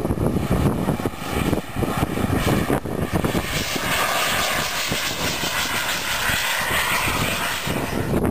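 Radio-controlled model aircraft engine running, its high hissing whine swelling about three seconds in and staying loud, over a low rumble.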